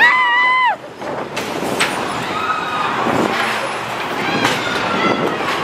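Riders screaming on a steel roller coaster: a long high scream in the first second, then the rumble of the moving train and wind, with fainter shouts further on.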